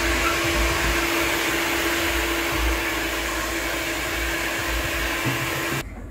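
Handheld hair dryer blowing on hair, a steady rush of air with a constant hum; it stops suddenly near the end.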